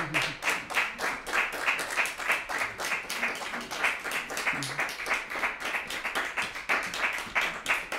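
A small audience applauding: many hands clapping at once in a dense, even run.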